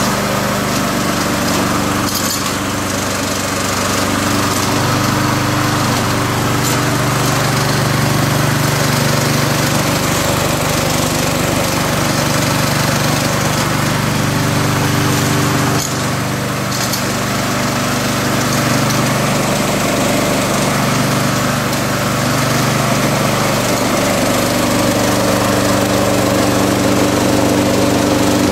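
Small single-cylinder petrol lawn-mower engine on a homemade remote-controlled mower, running steadily at a constant speed, with a brief dip about halfway through.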